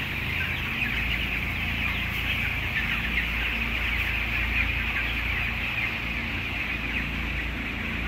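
A large flock of 16-day-old broiler chickens peeping and cheeping all at once, a dense, even chatter with no single call standing out. Under it runs a low steady hum from the poultry house's fans.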